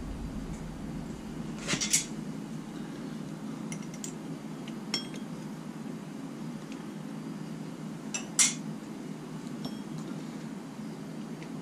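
A few light metallic clinks as hand tools and parts knock against the engine, the sharpest about two seconds in and again about eight seconds in, over a steady low hum.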